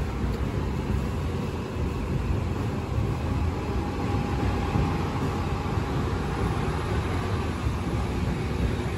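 Street traffic: a city bus and cars running in slow traffic, a steady low engine rumble with no sharp events.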